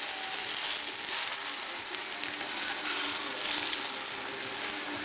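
Hamburger patties frying in a shallow pool of cooking oil in a pan: a steady, even sizzle, with a faint steady hum underneath.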